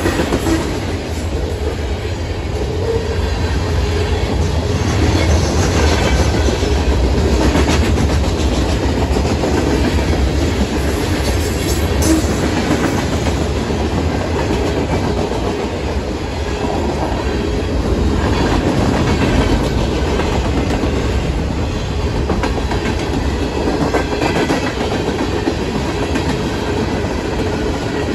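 Freight train cars rolling past at speed, a steady loud noise of steel wheels running on the rails. A brief sharp clank comes about twelve seconds in.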